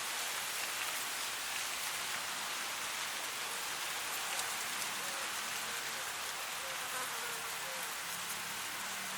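Wind blowing through dry grass: a steady, even hiss of rustling stalks with many faint fine crackles.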